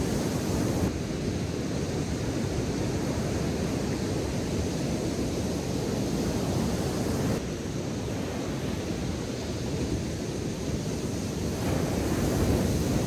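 Ocean surf breaking on a sandy beach: a continuous wash of waves, growing louder near the end as a wave breaks close to shore.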